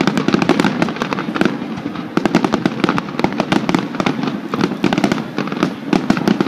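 Aerial fireworks bursting in a dense barrage: rapid crackling and popping, many reports a second, with no let-up.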